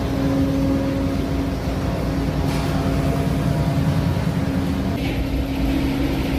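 Steady low engine drone with a constant hum on a car ferry's enclosed steel vehicle deck.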